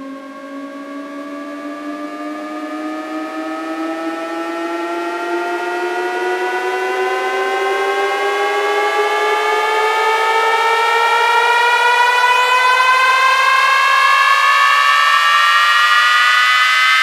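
A synthesized rising tone, a riser sweep, climbing slowly in pitch and swelling steadily louder, building up toward the drop of a bass-boosted sound-check track.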